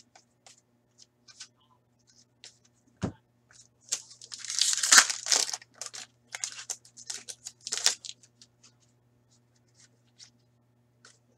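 Sports card pack wrapper being torn open, with a loud tearing rip about four seconds in, followed by a few seconds of crinkling and crackling of the wrapper. Light clicks and taps of cards being handled come before and after it.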